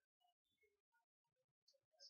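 Near silence: the faint room tone cuts in and out.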